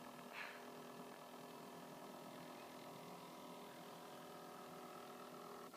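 Faint, steady whine of a toy RC boat's small electric motor running.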